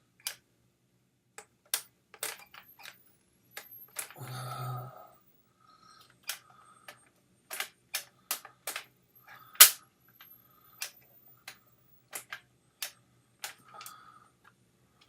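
Polaroid One Step instant camera being worked: a run of sharp clicks from its shutter button and handling, one loudest click near the middle, a short motor whir about four seconds in, and a faint rising high whine of the flash recharging. The camera fires its flash but fails to eject the aged 600 film.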